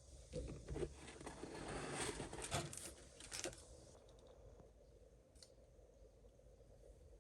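Rustling, crinkling and small clicks of a plastic model kit being handled, its parts and wrapping worked by hand. The handling sounds stop about three and a half seconds in.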